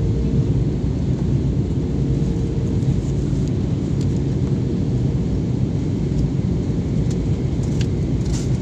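Steady low rumble of a jet airliner's engines and rushing air, heard inside the passenger cabin during the descent to land, with a faint steady hum that fades out about six seconds in. A short click near the end.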